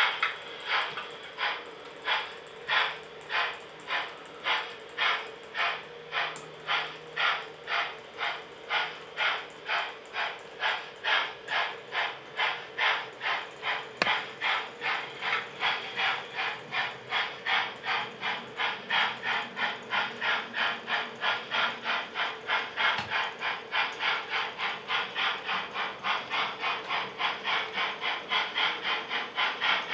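Model B1 steam locomotive's sound chuffing in a regular beat that quickens from about one and a half to about three chuffs a second as it picks up speed, over a faint steady hum, with one sharp click about halfway through.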